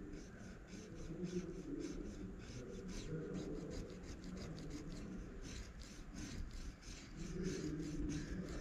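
Cotton swab wetted with absolute ethanol rubbing back and forth over the glue sealant along the glass edge of an LCD panel, a faint scratchy rubbing in quick, even strokes. The rubbing softens the sealant around the COF bond so it comes away.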